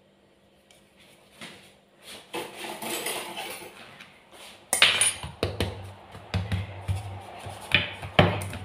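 Kitchen handling noises: a rolling pin knocking and rubbing on a floured wooden board as dough is rolled out, with sharp clinks and knocks of utensils. The clatter starts about two seconds in and gets busier from about halfway.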